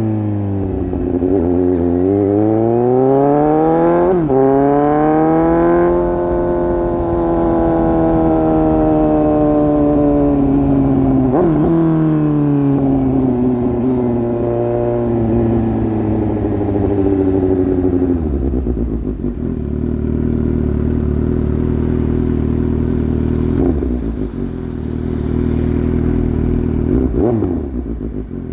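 Suzuki GSX-S750 inline-four engine with its exhaust dB killer removed, revving up and down through the gears with sharp pitch drops at the shifts. About two-thirds through it settles to a steady low idle, broken by two quick throttle blips near the end.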